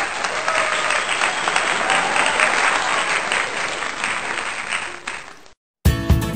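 Crowd applause, a dense patter of clapping that cuts off abruptly about five and a half seconds in. After a brief silence, strummed acoustic guitar music starts near the end.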